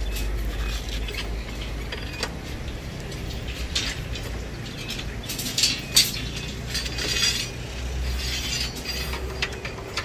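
Light metallic clinks and ticks of steel stirrups knocking against column rebar as workers fit them, scattered and busiest about halfway through, over a steady low rumble.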